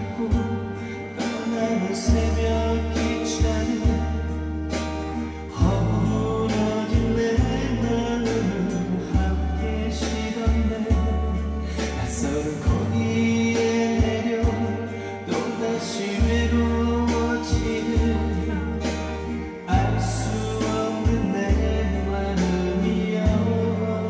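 A man singing a Korean trot song live into a microphone over a backing track with a steady bass and drum beat.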